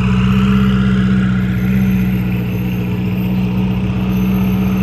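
Ferrari 488 Pista's twin-turbo V8 through a Novitec exhaust, running steadily at low revs with no rise in pitch as the car rolls slowly away.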